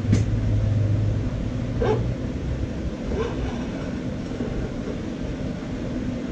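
A dog barking twice, about two seconds in and again a second or so later, over a steady low hum.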